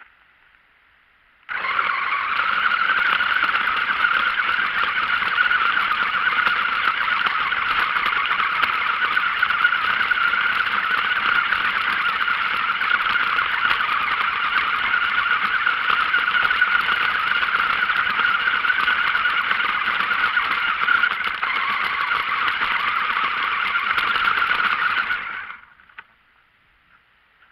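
Radio-controlled toy car driving in circles over gravelly sand, heard from a camera riding on it: a steady, loud running noise of the motor and tyres on grit. It starts suddenly about a second and a half in and stops about two seconds before the end.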